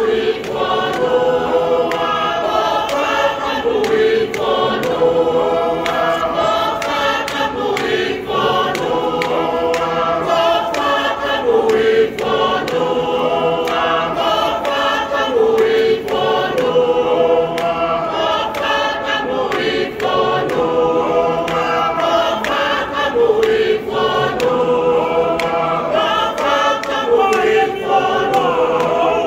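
A large choir of many voices singing together, a Tongan church choir, in a repeating phrase that comes back to the same held note about every four seconds.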